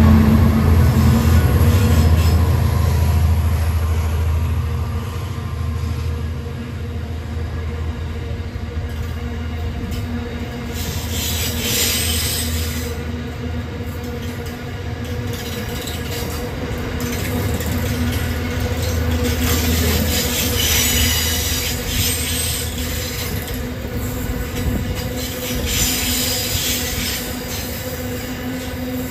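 Diesel locomotive engine droning as it passes at the start and fading away, followed by empty grain wagons rolling past on the rails with clicking wheels and repeated bouts of high-pitched wheel squeal.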